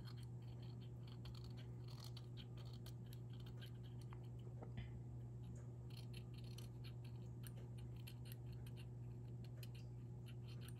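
Steel knife blade scraping dried glue out of the bore of a tungsten fidget spinner: faint, irregular scratching and ticking. Under it runs a steady low hum from an aquarium.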